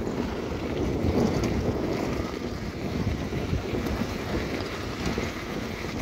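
Wind buffeting the microphone: a continuous, gusting low rumble.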